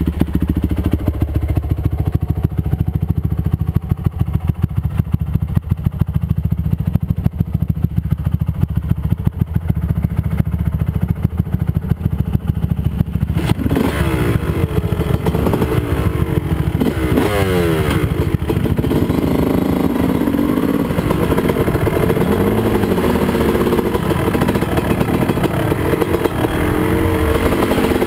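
Dirt bike engine idling with a steady low pulse, then revved up and down several times about halfway through as the bike pulls away and rides along the trail.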